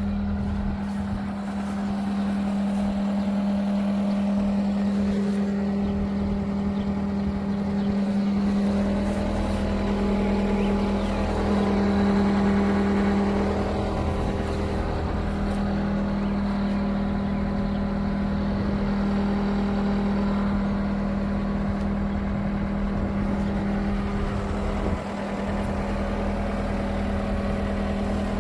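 A John Deere 325G compact track loader's diesel engine running steadily, with a strong even hum that swells slightly about 12 seconds in.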